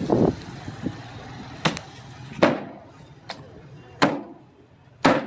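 Cleaver chopping on a block: four sharp, heavy blows at uneven intervals of about a second, each with a short ringing tail.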